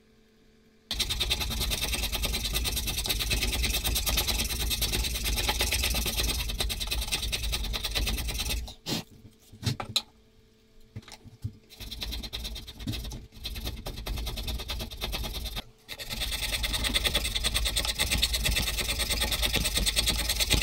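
Steel chisel paring wood while guided in a wooden jig: long, continuous scraping strokes with a fine rapid chatter. A pause with a few light knocks and some short strokes comes midway.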